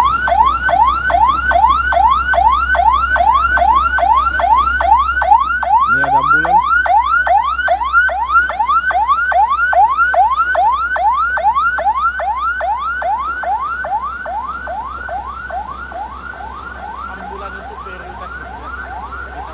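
Electronic siren sounding a fast yelp: a rising wail repeated about two and a half times a second, steadily growing fainter over the last several seconds.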